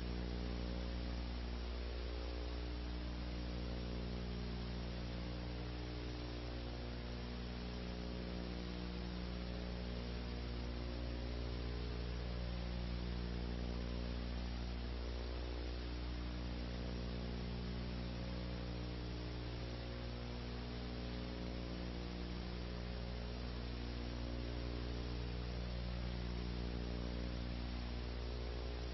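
Steady electrical mains hum with a ladder of overtones, some slowly swelling and fading, over a constant hiss: the noise of a blank stretch of recording with no programme sound.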